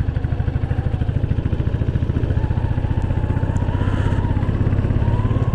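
Motorcycle engine running at a steady cruise with an even, rapid pulsing beat, heard from the rider's seat. A faint wavering whistle-like tone joins about halfway through.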